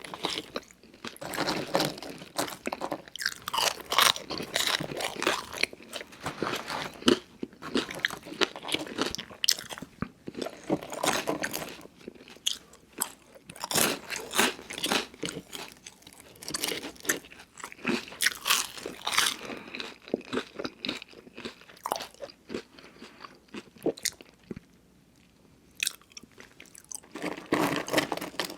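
Close-miked eating of fast food: crunchy bites and steady chewing, full of sharp crackles, with a pause of a couple of seconds near the end.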